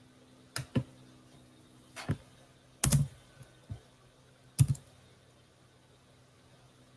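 A few scattered keystrokes on a computer keyboard, single taps and quick pairs about a second apart, over a faint steady hum.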